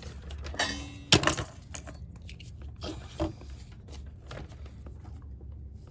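Small metallic clicks and taps from handling soldering tools on a circuit board, with one sharp click about a second in, over a steady low hum.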